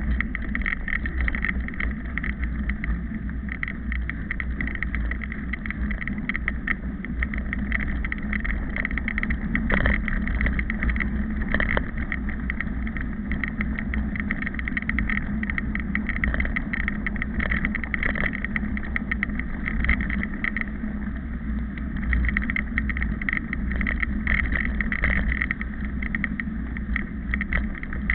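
Mountain bike rolling fast over a sandy gravel dirt road, heard from a camera riding on the bike: a steady rumble of tyres and air with constant small clicks and rattles.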